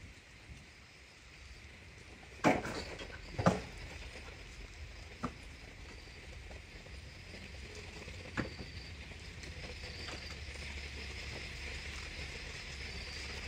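Two sharp knocks about a second apart, then two fainter single knocks, in an empty, debris-filled room, over a steady faint high chirring of night insects.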